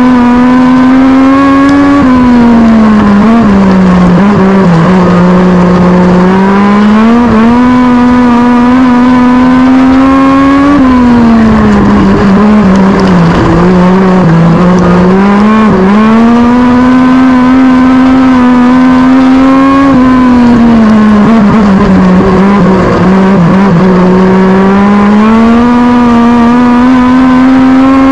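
Legend race car's Yamaha four-cylinder motorcycle engine heard from inside the cockpit during racing laps. It is very loud, holding high revs down the straights and dropping three times as the driver lifts off for the turns before pulling back up.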